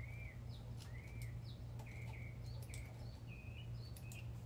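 Small birds chirping, repeated short arching calls about once a second mixed with quicker higher notes, over a steady low hum.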